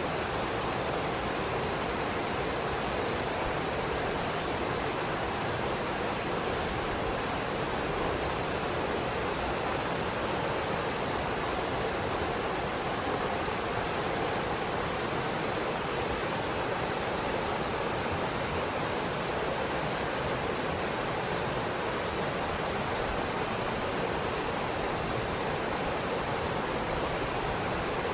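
Steady insect chorus, a continuous high, shrill drone, over a constant broad hiss.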